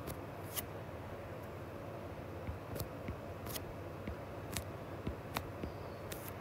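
Stylus tip tapping on a tablet's glass screen while handwriting numbers: about seven light, sharp ticks at irregular intervals over a steady faint background hiss.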